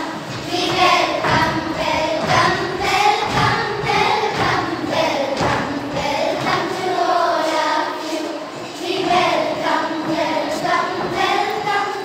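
A group of girls singing together in chorus, with repeated thuds of dancing feet on a wooden floor.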